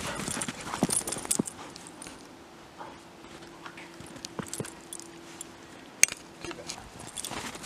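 Two dogs playing in snow: short scuffs and crunches of paws through the snow, with small clinking jingles, and a sharp click about six seconds in. A faint steady hum runs through the middle.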